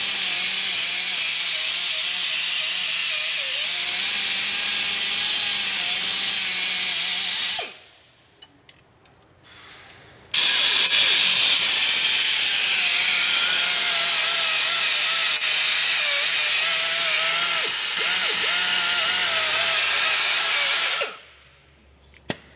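Power grinder taking paint off the rear axle housing down to bare metal, running steadily with a wavering pitch. It runs for about seven seconds, stops for about three, then runs again for about ten seconds before cutting off.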